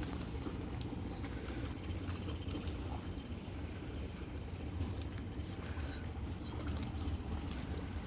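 Small birds chirping in short runs of three or four quick high notes, over a steady low rumble of outdoor wind or surf noise.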